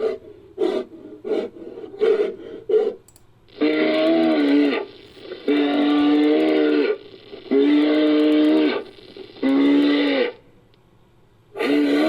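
Designed creature call made from processed elephant seal vocalisations: a quick run of short pulses, then four long, steady-pitched bellows of about a second each with short gaps, a fifth beginning at the very end.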